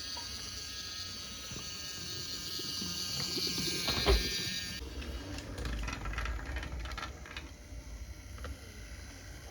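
Small electric motor of a battery-powered toy train whining steadily and growing louder, then cutting off suddenly about five seconds in, followed by light clicks and knocks of wooden pieces.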